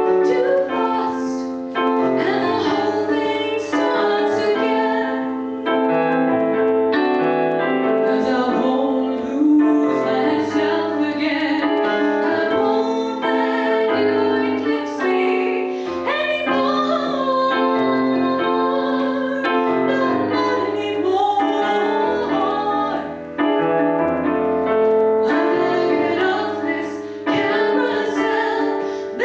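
A woman singing over her own piano accompaniment played on a Roland digital keyboard, with sustained chords and a moving bass line under the voice.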